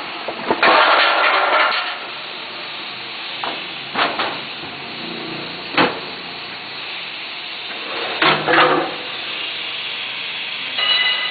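Automatic 5-gallon water bottle filling machine running: a steady hiss with sharp knocks and two longer clattering spells, one about a second in and one near the end, as the bottle is handled inside.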